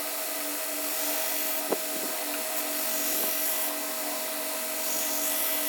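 Grizzly 2x42 variable-speed belt grinder running with a knife blade held to the belt: a steady whine with a faint regular pulse a few times a second, and a short click about two seconds in.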